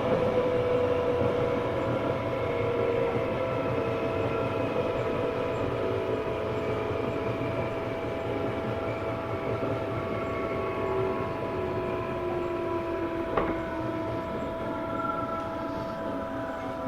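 Tobu 9000 series armature-chopper electric train running, heard from inside the car: a steady whine and a second tone that slowly falls in pitch as the train loses speed, over rail rumble, with a single knock about thirteen seconds in. This car's traction motor then made an unusual sound, unlike the normal 9000 series.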